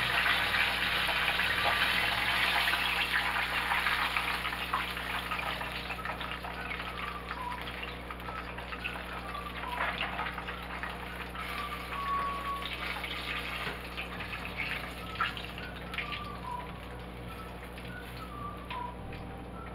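Hot oil sizzling around fried chicken in a skillet, dying down over the first several seconds to a thinner hiss with scattered pops and crackles. The quieting oil is the sign that the chicken is done.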